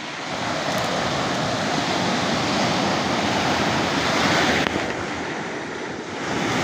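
Small sea waves breaking and washing over a pebble beach: a steady hiss of surf that eases briefly about two-thirds of the way through, then builds again.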